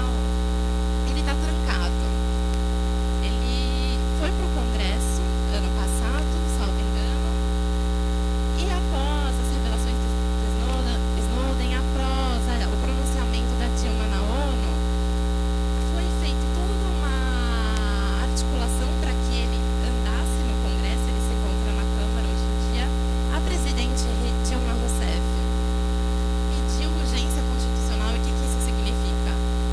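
Loud, steady electrical mains hum with a stack of overtones, which covers everything else. A faint voice is barely audible beneath it at times.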